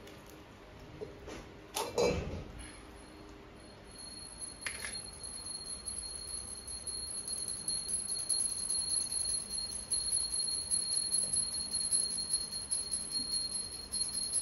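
Small brass puja hand bell rung rapidly and continuously from about four seconds in: a fast jingling over a steady high ring. About two seconds in, one sharp knock.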